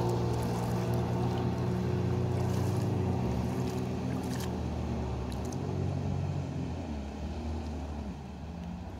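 Jet ski engine running at speed, a steady drone that grows a little fainter over the last couple of seconds as the craft pulls away.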